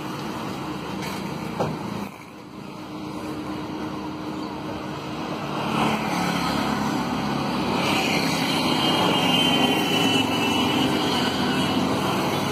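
Road traffic noise from cars passing on a busy street, growing louder about halfway through.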